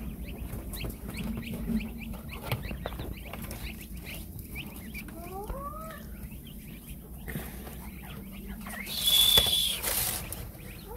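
Newly hatched chukar partridge chicks peeping: many short, quick rising cheeps, with a couple of longer upward-sliding calls about halfway through. About nine seconds in, a louder rush of noise with a shrill steady tone cuts in for a second or so.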